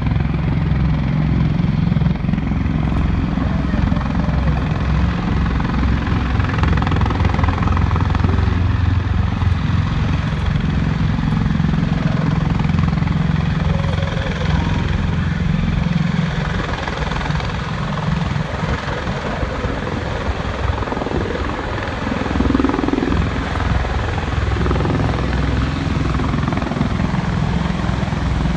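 Bell-Boeing V-22 Osprey tiltrotors' twin proprotors and turboshaft engines running in hover on approach to land, a loud steady low rotor drone. It eases a little in the middle and swells again about two-thirds of the way through.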